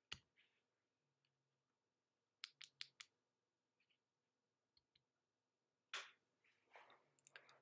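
Faint, sparse computer keyboard keystrokes: a single click, then a quick run of four clicks about two and a half seconds in, and a few more near the end, with a brief soft noise about six seconds in.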